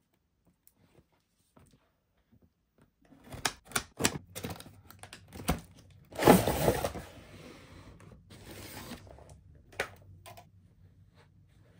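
Cardboard toy packaging being opened: a few sharp clicks and taps, then a loud tearing scrape as a cardboard insert is pulled free, followed by softer rustling and a single click near the end.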